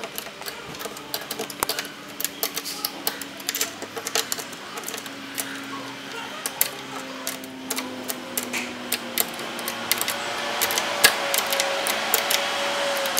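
Small open-end wrenches clicking and clinking against a bolt and lock nut as the nut is tightened on a metal ladder-mount bracket, in many quick, irregular clicks.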